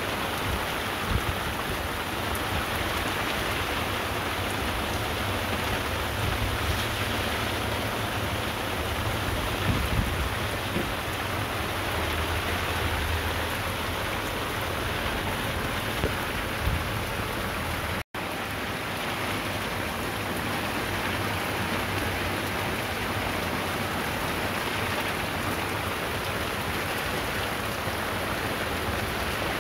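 Heavy rain pouring down steadily, a dense even hiss of rain on surfaces, with a few brief knocks.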